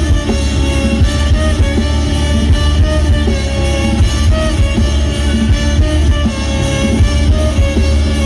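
A band playing loud music with a steady drum beat and heavy bass under a sustained, violin-like melody line.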